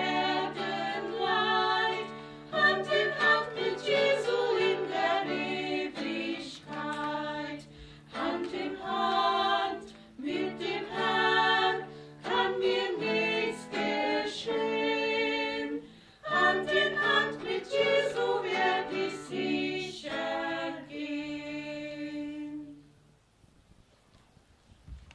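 Four women singing a hymn together, accompanied by an acoustic guitar. The song ends about 23 seconds in.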